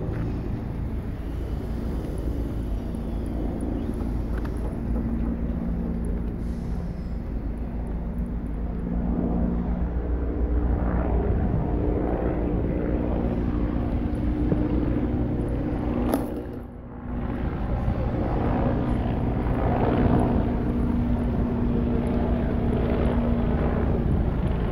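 Outdoor ambience: a steady low rumble with a continuous mechanical hum, like an engine or machine running, dipping briefly about two-thirds of the way through.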